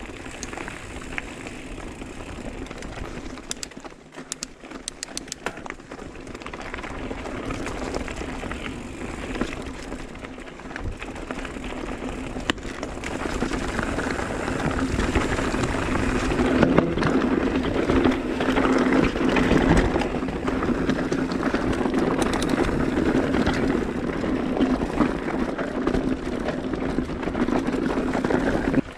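Mountain bike riding on a rocky dirt trail: continuous tyre and frame rattle, with a few sharp ticks early on, getting louder about halfway through.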